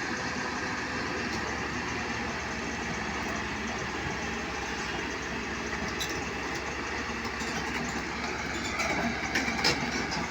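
Excavator diesel engine running steadily, with a few short knocks about nine seconds in.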